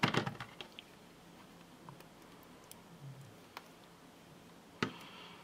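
Small paper die-cut flowers and a liquid glue bottle being handled on a cutting mat: a cluster of light clicks at the start, a few faint ticks, then one sharp click near the end followed by a faint hiss.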